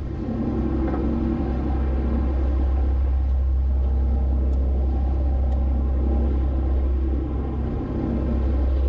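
Sportfishing boat's engine running with a steady low drone, with water rushing along the hull.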